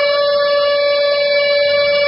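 Fire-brigade siren sounding one loud, steady tone with strong overtones, its pitch not rising or falling.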